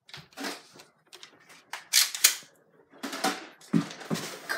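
Irregular clicks and knocks of plastic Nerf blasters being handled as people move about, with two sharp clicks close together about two seconds in.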